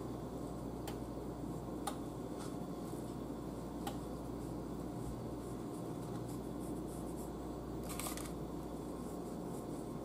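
Quiet kitchen handling sounds from hands working a raw whole chicken in a cast iron skillet: a few faint light clicks and one short rustle about eight seconds in, over a steady low hum.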